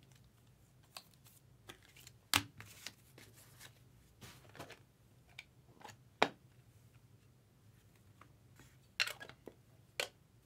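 Trading cards in plastic sleeves and a clear plastic card case handled on a table: soft sliding and shuffling, broken by sharp plastic clicks and taps, four of them loud.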